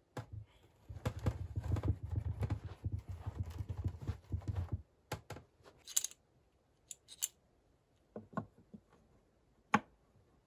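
For about five seconds, a dense run of dull knocks and thumps as a heavy log is shifted and settled on a wooden sawhorse. Then come scattered light clicks and a few metallic clinks as a metal hinge is handled and held against the log.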